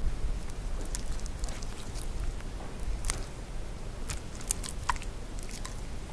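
Foley of hard-soled shoes on icy steps: an irregular scatter of small crisp crunches and clicks, over a low steady hum.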